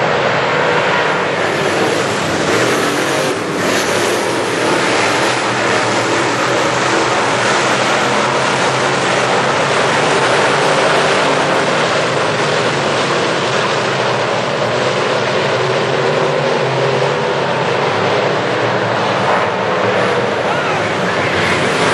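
A pack of GM Crate Late Model dirt-track race cars running together at speed, their GM crate V8 engines blending into one loud, steady, unbroken drone.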